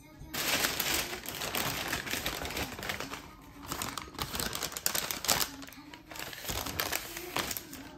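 Paper bags rustling and crinkling irregularly as a brown kraft-paper bread bag is pulled out of a white paper shopping bag and handled. The rustling starts about a third of a second in.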